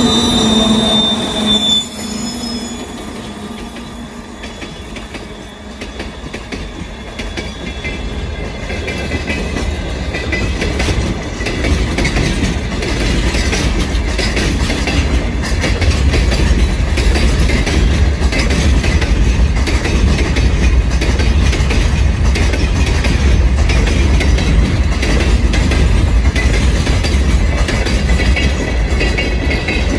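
Freight wagons rolling past on jointed track: a low rumble of wheels on rail with clatter and a faint high wheel squeal, growing louder from about six seconds in and then holding steady. For the first two seconds the 2TE116 twin-section diesel locomotive's engines are heard passing close, cut off suddenly.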